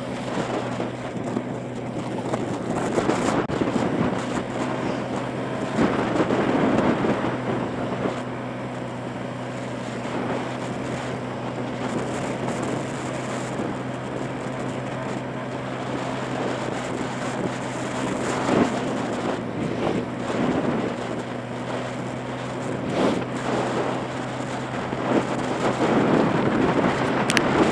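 Motorbike engine running at a steady cruising speed, its hum holding one pitch, with wind buffeting the microphone in gusts that come and go.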